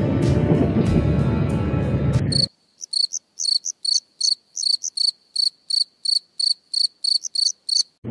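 Background music and road noise cut off abruptly about two and a half seconds in, leaving a cricket chirping alone in a clean, regular series of short high chirps, about three a second. The sudden silence around the chirps is typical of an edited-in 'crickets' sound effect.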